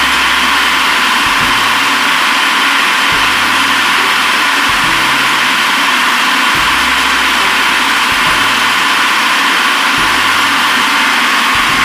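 Food processor motor running steadily at full speed, grinding raw chicken forcemeat into a smooth paste.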